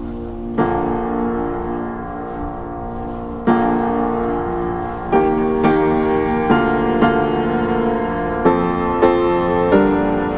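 Background piano music: slow held chords, then a gentle run of single notes about twice a second in the second half.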